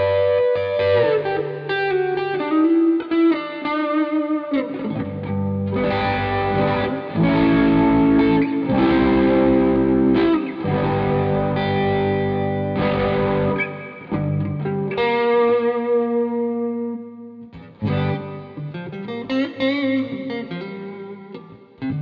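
Electric guitar played through a Zoom G1Four multi-effects pedal into the front of a Hotone Nano Legacy Siva Boogie mini amp, taken from the amp's line out. It plays single-note lines with a few bent or sliding notes, and a run of held, ringing chords in the middle.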